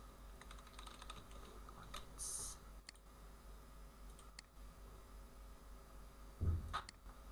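Computer keyboard keystrokes and mouse clicks, scattered and light, over a faint steady hum. A low thump near the end is the loudest sound.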